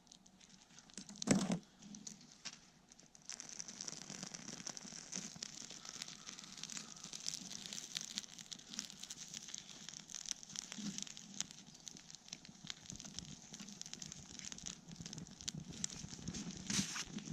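Small twig-and-kindling campfire catching and crackling, a dense run of fast little pops that sets in about three seconds in. A single sharp knock about a second in.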